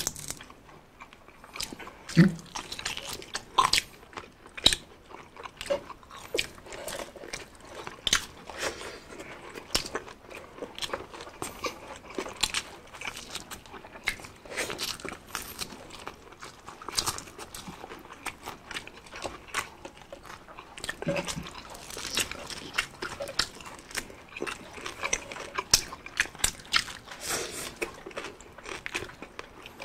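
Two people biting and chewing crispy fried pork (chicharon bulaklak and bagnet), with many sharp, irregular crunches.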